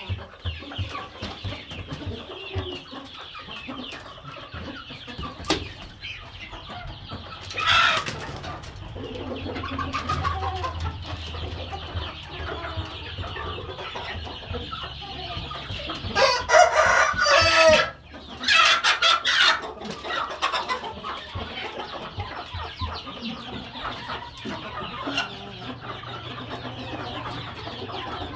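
Chickens clucking in a poultry yard, with a rooster crowing loudly a little past halfway, broken by a brief pause; a shorter loud call comes about eight seconds in.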